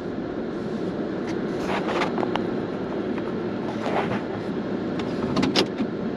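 Pickup truck driving, heard from inside the cab: steady road and engine noise with scattered light rattles and knocks.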